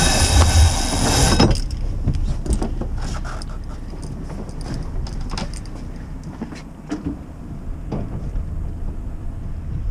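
A rope hauled in hand over hand, hissing as it runs, until it stops about a second and a half in. After that a low steady rumble with a few faint knocks.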